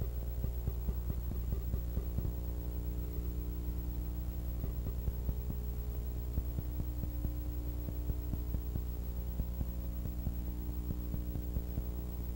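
Steady electrical mains hum with a stack of overtones and constant light crackling, and no other sound: the noise of a silent film's transfer to tape.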